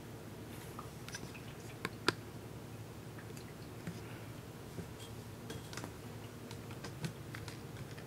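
Crane ultrasonic cool mist humidifier running quietly: a faint steady low hum with scattered small clicks and ticks, the sharpest two about two seconds in.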